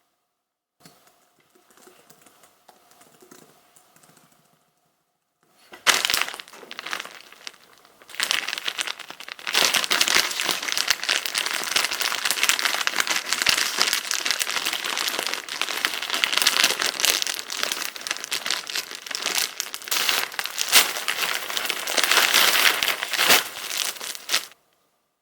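Plastic packaging crinkling and being torn open as it is handled: faint at first, with a burst about six seconds in, then continuous crinkling from about ten seconds in that stops suddenly near the end.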